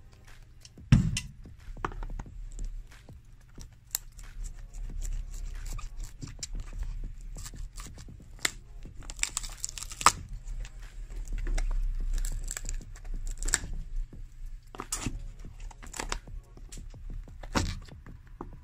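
Old sole layers being pried up and torn off the bottom of a leather shoe with a flat metal blade: scraping, cracking and tearing with many sharp clicks, and a loud knock about a second in.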